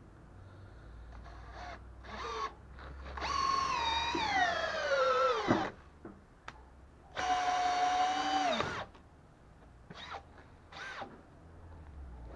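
Makita DHP481 18V cordless drill-driver driving a long SPAX wood screw into a timber block. The motor whine falls steadily in pitch as it slows under the load and then stops. A second, steadier run of about a second and a half follows, then a few short trigger blips.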